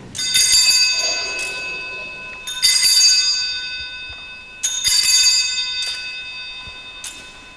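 Altar bells rung three times, about two seconds apart, each a bright jangle that fades away slowly: the signal for the elevation of the chalice at Mass.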